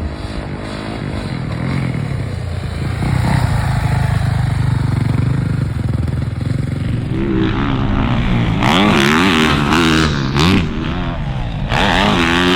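2023 Yamaha YZ450F motocross bike's single-cylinder four-stroke engine running. From about seven seconds in it revs up and down repeatedly as it is ridden hard around the track.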